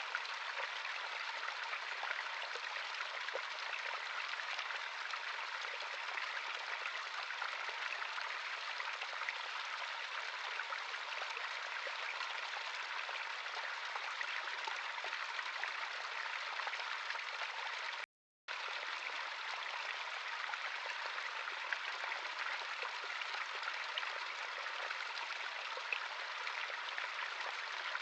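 Natural stream running water, a steady rushing flow that cuts out completely for about half a second a little past the middle.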